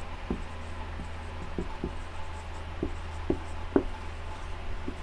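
Marker pen writing on a whiteboard: a string of short, separate strokes and taps of the nib, about eight in five seconds, over a steady low hum.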